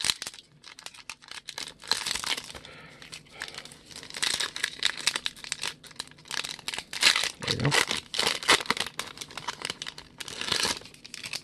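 Trading-card pack wrapper crinkling and tearing as it is opened, in several bursts of rustling with quieter handling between them.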